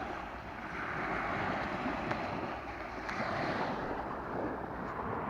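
Sea waves washing onto the shore of the Sea of Azov, the surf swelling and easing, with wind buffeting the microphone.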